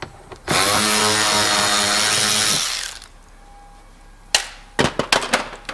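Power drill running steadily for about two seconds, backing out a bumper fastener. Near the end, a few sharp clicks and knocks.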